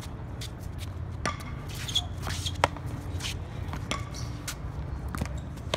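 A pop tennis rally: a ball gives sharp pops as paddles strike it and it bounces on the hard court, several over a few seconds, the loudest about two and a half seconds in. A steady low rumble runs underneath.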